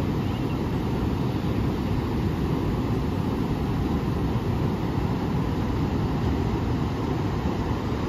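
Pacific Ocean surf breaking along the beach: a steady, low rushing noise with no let-up.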